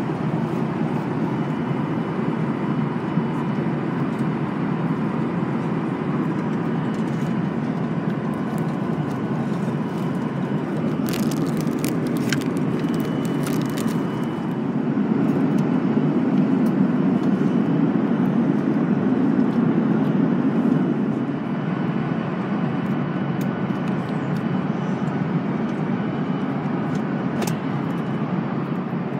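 Steady cabin noise of a Boeing 737-800 in cruise, a dense low rush of engines and airflow that swells a little for several seconds in the middle. A few crackles of plastic wrapping on a meal tray come just before the middle.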